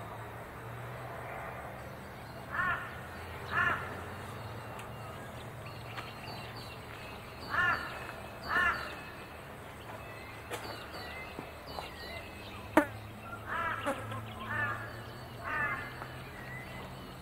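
Crow cawing: two pairs of harsh caws about a second apart, then a quicker run of four or five caws later on, over a steady low hum. A single sharp click comes between them.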